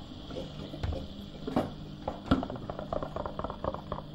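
A pan of deglazed meat juices bubbling and crackling as it reduces on an induction hob, with a few sharp utensil knocks and a steady low hum underneath. The crackling quickens into a fast run of small ticks in the second half.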